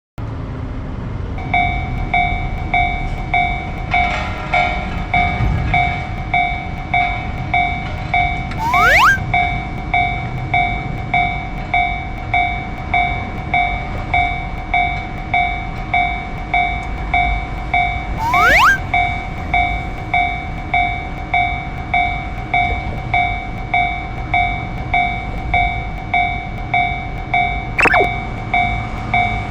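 Japanese railroad-crossing warning bell ringing in a steady, even rhythm over the low rumble of a passing train. A brief rising sweep cuts through three times, about ten seconds apart.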